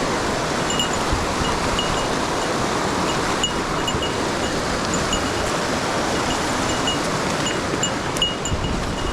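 Mountain stream water rushing steadily, with faint short high ticks scattered through it.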